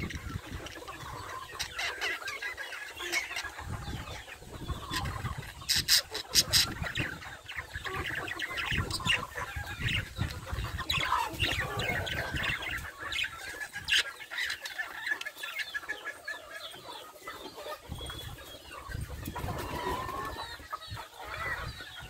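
Hagoromo budgerigars chattering: a steady stream of chirps, warbles and sharp clicks.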